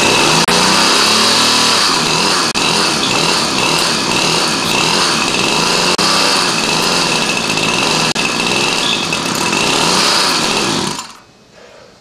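A gas string trimmer engine runs steadily on its own with its clutch weights removed, after a hard-to-start carburetor has been got going. It stops suddenly about eleven seconds in.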